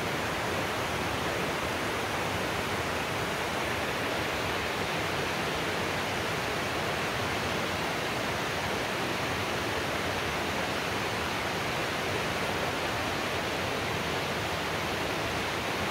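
Small waterfall: falling water making a steady, even rushing hiss that does not change.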